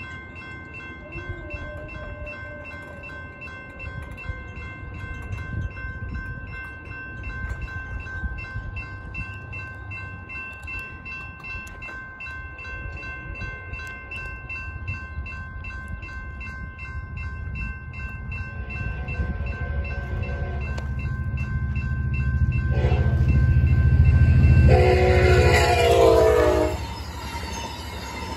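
Railroad crossing bells ringing steadily while an Amtrak passenger train approaches with a rumble that grows louder. Near the end the locomotive's horn sounds a short blast, then a longer one that sags slightly in pitch as the train reaches the crossing and its cars roll through.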